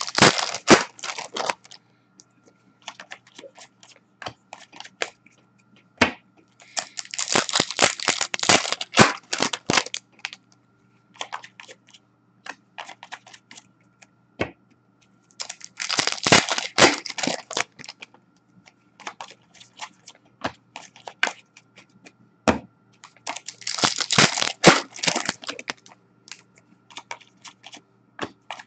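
Foil hockey-card pack wrappers being torn open and crinkled, in four bursts of about two seconds each, roughly eight seconds apart, one for each pack. Short sharp clicks and taps of cards being handled come in between.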